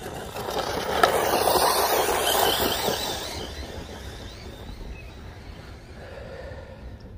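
Arrma Typhon 6S RC buggy driving on grass, its brushless motor and drivetrain whining. It gets louder over the first second or so, peaks with a sharp click about a second in, then fades as the buggy moves away.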